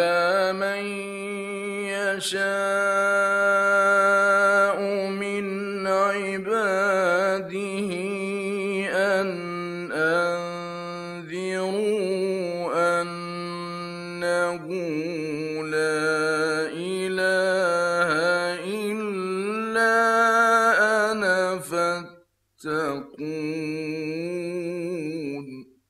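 Male Quran reciter chanting in the melodic mujawwad style, holding long ornamented notes that waver and turn on a steady low pitch. The voice breaks off briefly for a breath near the end, then resumes.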